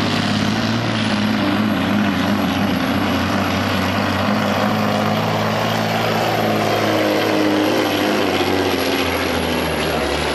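Semi truck's diesel engine running hard under full load as it drags a weight-transfer sled, with a steady high whistle over the engine note. The engine's pitch settles lower from about seven seconds in.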